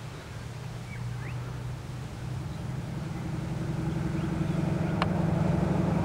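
Diesel locomotive engine running under load, a steady low hum that grows louder as the train approaches.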